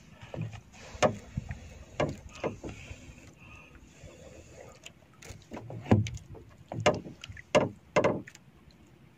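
A smouldering coconut husk being handled on a wooden paddle blade aboard a small wooden boat: irregular short knocks and thumps, about seven, the loudest in the second half.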